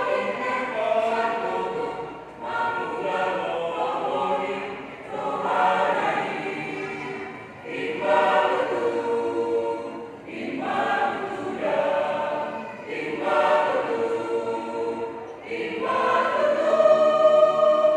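A choir singing in harmony, in long held notes grouped in phrases of about two to three seconds each.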